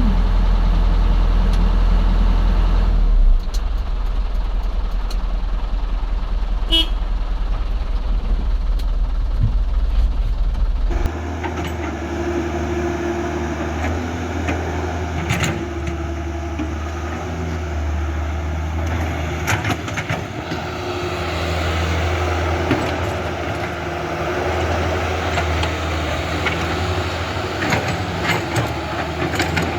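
Radio-controlled construction vehicles running: a steady, engine-like low hum whose sound changes abruptly about eleven seconds in, with a few sharp clicks later on.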